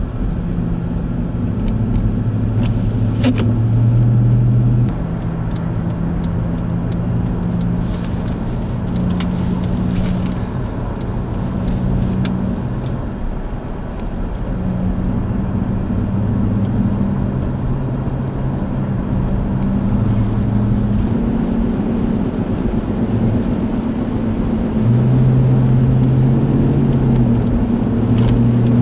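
Vehicle engine running with a steady low hum, its pitch stepping up and down a few times, and a few faint clicks over it.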